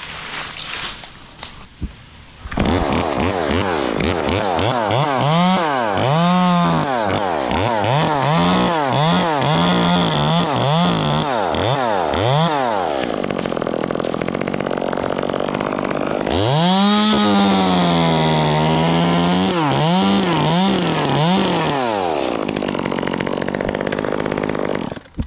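Chainsaw starting up about two seconds in and cutting beech wood, its engine revving up and down over and over as the throttle is worked and the saw loads in the cut, with a steadier stretch in the middle. It cuts off just before the end.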